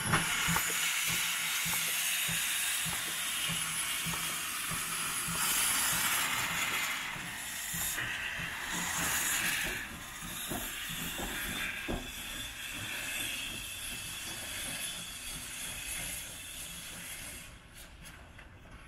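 Steam locomotive 414.096, an Austrian-built 0-8-0 of kkStB class 73, hissing loudly as steam blasts from its open cylinder drain cocks while it pulls away, with a few sharp knocks. The hiss fades near the end as the engine draws off.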